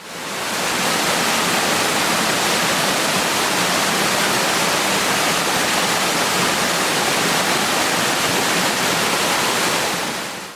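Waterfall rushing in a steady, even roar of falling water. It fades in at the start and fades out just before the end.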